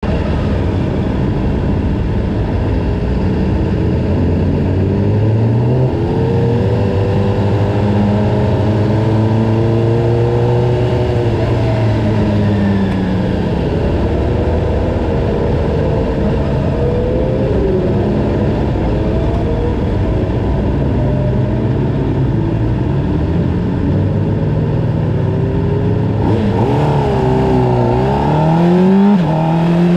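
Honda CBR600RR inline-four engine heard onboard at pit-lane speed, its pitch rising and falling gently with the throttle and gear changes. Near the end the revs climb sharply under acceleration, with an upshift just before the end.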